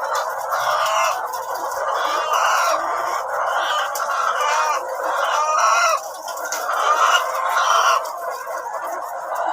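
A flock of ready-to-lay pullets clucking and calling, many birds at once in a dense, continuous chorus.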